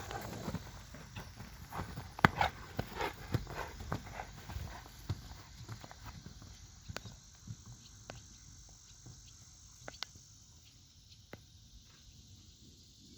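Horses moving about on the ground: hoofbeats, thuds and scuffs, busiest over the first few seconds with one sharp loud knock about two seconds in, then thinning out to occasional taps.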